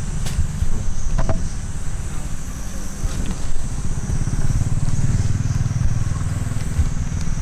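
Low, steady hum of an engine running nearby, with a short click about a second in.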